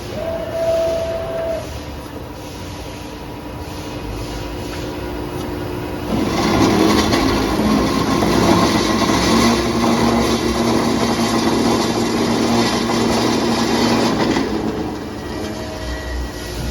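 OMP KR3 CNC mitering cold saw running its automatic cycle: a steady machine hum with a short whine near the start and again near the end, and a louder, rougher stretch with a steady low tone from about six to fourteen seconds in.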